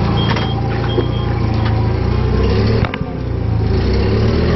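Forklift engine running steadily while its reversing alarm beeps about every two-thirds of a second; the beeping stops about a second in and the engine runs on, with a sharp click near the three-second mark.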